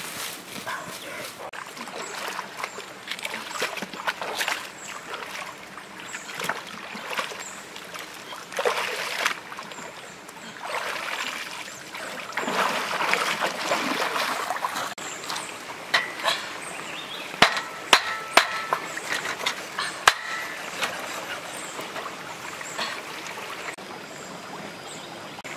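Footsteps splashing through a shallow rocky stream, loudest partway through. Later come several sharp snaps a little apart.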